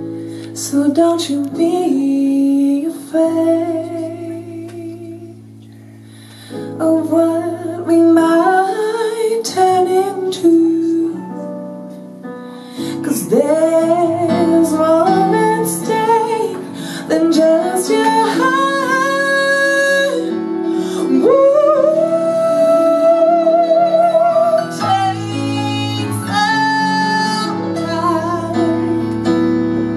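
A woman singing a jazz song live, with vibrato on her held notes, over sustained keyboard chords.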